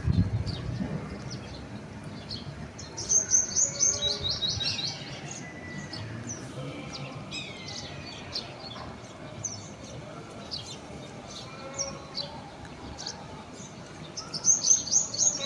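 Songbirds chirping, with a loud, fast, high trill that drops in pitch, heard twice: a few seconds in and again near the end.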